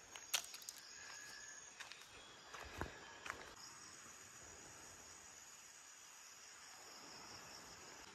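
Faint, steady high-pitched buzz of rainforest insects, with a few soft clicks or taps in the first half.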